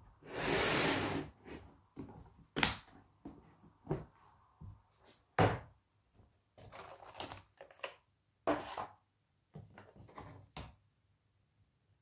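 Plastic screwdriver carry case being opened by hand: a second-long scrape at the start, then a string of sharp plastic clicks and knocks as the latches and clear lid are worked and the lid is lifted off.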